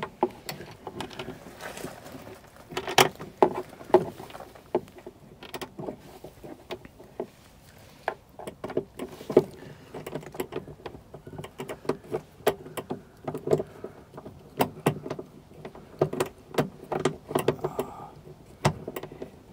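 A bolt being screwed into a steel door bracket on a van's cab door with a small L-shaped key from a bike tool kit: irregular metallic clicks and taps as the key turns and knocks against the bolt and bracket, some ringing briefly.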